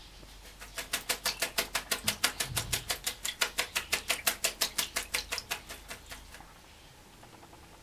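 A wet red-crowned parakeet beating its wings hard while bathing, a fast, even flutter of about seven wingbeats a second that starts just under a second in and stops at about six seconds.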